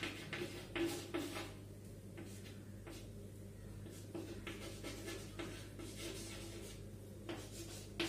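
Chalk writing on a blackboard: groups of short strokes as letters are written, pausing between words, over a steady low hum.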